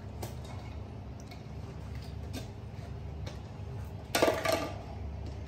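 Plastic toy kitchen pieces being handled, with a few faint clicks, then a brief clatter of hard plastic knocking together a little after four seconds in.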